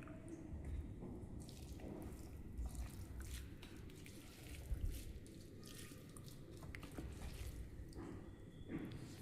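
Close-up eating sounds: chewing with scattered soft, wet mouth clicks and smacks while eating vegetable biryani.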